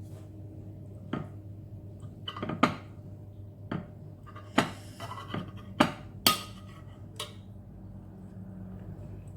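Eating utensils clinking and knocking against a bowl of instant noodles: about eight short, sharp sounds over several seconds, the loudest in the middle.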